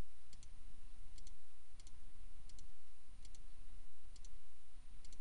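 Computer mouse button clicks, each a quick press-and-release double click, about six of them roughly a second apart, as items in a drop-down list are opened and picked. A steady low hum runs underneath.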